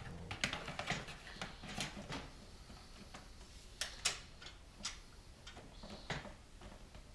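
Irregular plastic and metal clicks and knocks from an optical drive being handled and slid into the tool-less drive bay of a Corsair 750D PC case. They come as a cluster of small clicks at first, two sharper clicks about four seconds in, and another near the end.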